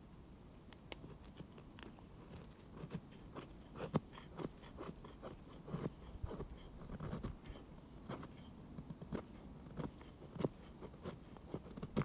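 A blade splitting and shaving a stick of sap-rich pine by hand, the wood cracking and crunching in irregular snaps as the resinous inner wood is cut out for fire lighting.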